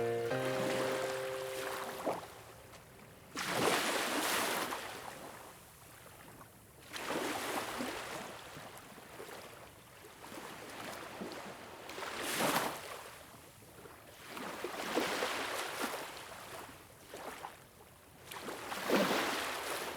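Sea waves breaking and washing in, one swell of surf rising and fading about every three to four seconds. A few sustained music notes die away in the first two seconds.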